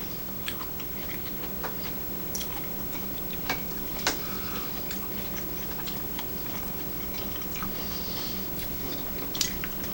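People chewing and biting into crunchy food, spicy kelp noodles with lotus root, with scattered small crisp clicks and crunches over a faint steady hum.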